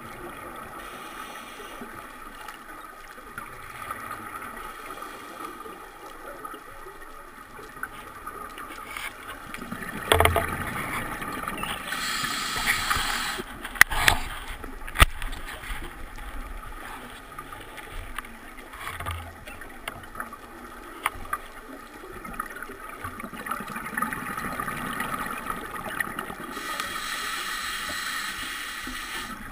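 Underwater sound at a scuba diver's camera: regulator breathing, with louder rushing, bubbling exhalations about ten seconds in and again near the end, and a few sharp clicks around the middle.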